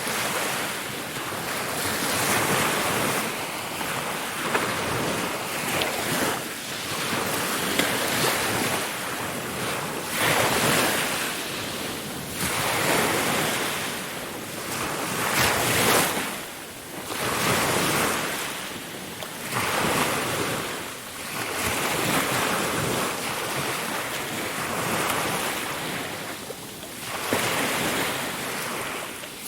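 Ocean waves washing in and breaking, a hissing surf that swells and falls every two to three seconds.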